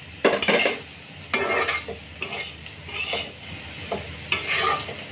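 A spatula scraping and stirring diced fried potatoes in a black pan in a series of uneven scraping strokes, over a faint sizzle of frying.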